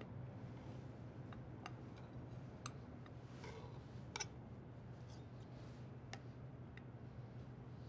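Scattered light clicks of metal kitchen tongs and tomato pieces being set down on a plate, about half a dozen spread over several seconds, the sharpest near the middle, over a low steady room hum.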